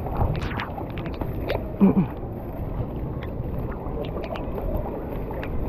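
Shallow floodwater sloshing and splashing as someone wades along a flooded street, with wind noise on the microphone. About two seconds in, a brief louder sound with falling pitch stands out.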